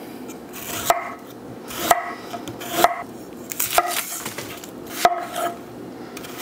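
Chef's knife cutting through fresh ginger and then an onion on an end-grain wooden cutting board: a short swish through the food and a sharp knock of the blade on the wood, about once a second, with a brief ring after each knock.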